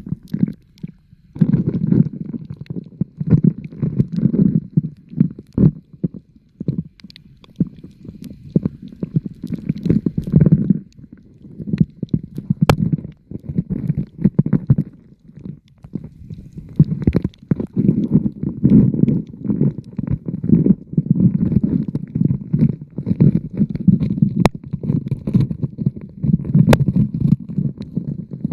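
Muffled underwater water noise: irregular low gurgling and sloshing surges with a few small clicks, as heard by a camera submerged while diving.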